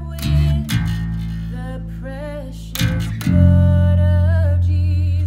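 Worship band playing live: an electric bass holds long low notes, changing a few times, under a singer's voice and strummed guitar chords.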